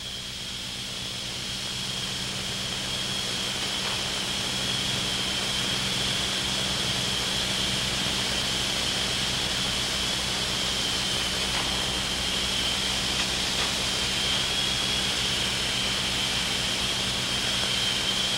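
Cessna 210's single piston engine and propeller running at high power, the sound building over the first few seconds and then holding steady.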